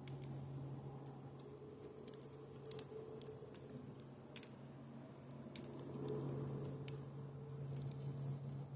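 Small birds pecking at the feeder: irregular sharp taps and cracks of beaks on seed and feeder, over a steady low hum.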